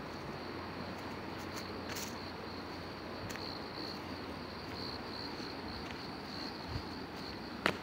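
Insects trilling steadily in a high, slightly wavering tone, with a few faint ticks and one sharp click near the end.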